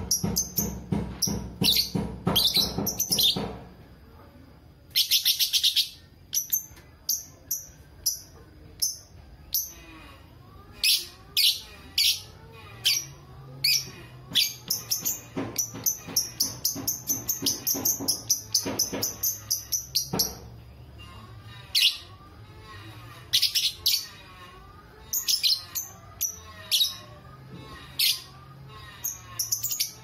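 A lovebird's ngekek: rapid runs of chatter in the first few seconds and again about five seconds in, then many sharp, shrill chirps at irregular intervals.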